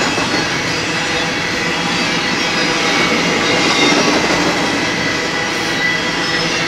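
Double-stack intermodal well cars loaded with containers rolling past, a steady rumble of steel wheels on rail with faint high squeal tones from the wheels.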